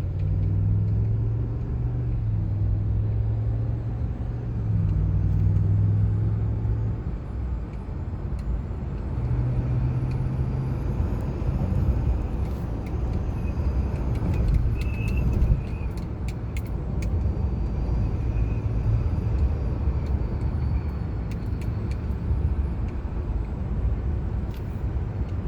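Wind and road noise in the cab of a 2019 Ram 1500 Longhorn pickup on the move, a steady rush with a low engine hum that comes and goes over the first half. A few faint clicks fall around the middle.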